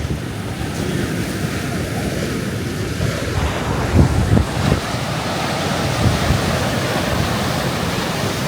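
Strong, gusty wind buffeting the microphone over steady surf, with the heaviest gusts about halfway through.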